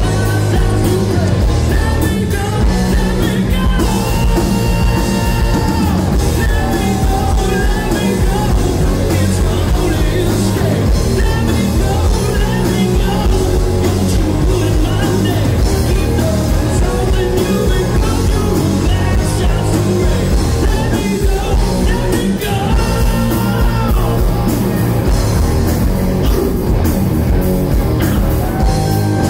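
Live rock band playing loudly: a singer over electric guitars, bass guitar and a drum kit, continuous through the song.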